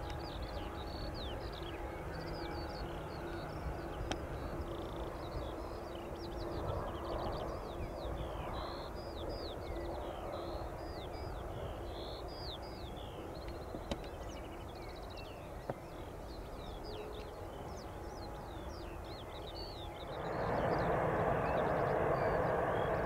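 Small birds singing, many quick chirps throughout, over a steady low rumble with a faint hum. About twenty seconds in, the noise of an approaching jet airliner swells and becomes the loudest sound.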